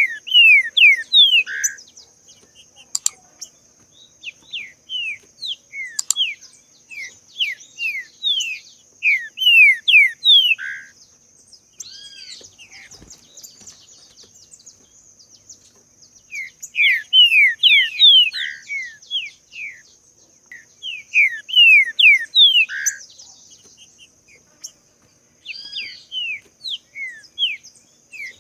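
Green-winged saltator (trinca-ferro) singing: phrases of quick, downward-sliding whistled notes, repeated several times with pauses between, over a steady high-pitched hiss.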